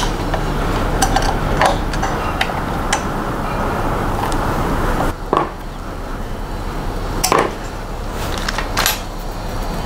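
A screwdriver fastening the metal power supply to a 3D printer's aluminium frame: scraping and turning, with several sharp metal clicks spread through.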